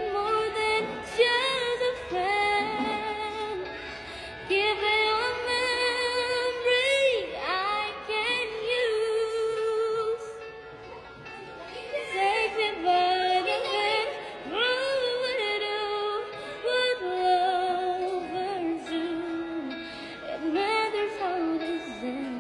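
A high, clear voice singing a melody with ornamented, wavering held notes over a music backing.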